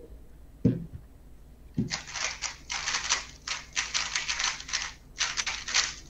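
3x3 speedcube being turned very fast in a speed solve: rapid plastic clicking and clattering in runs with brief pauses between. Two dull knocks come before it, in the first two seconds.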